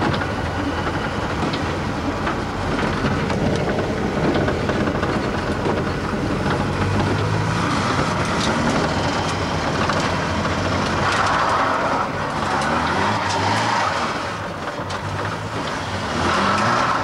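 Mk1 Ford Escort RS2000's four-cylinder engine heard from inside the cabin while driving, with road noise. In the second half the revs climb and drop several times as the car accelerates through the gears.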